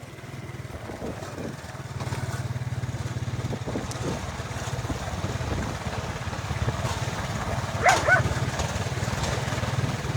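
A small engine running steadily with a fast low pulse, getting louder about a second and a half in. A dog gives a short whine about eight seconds in.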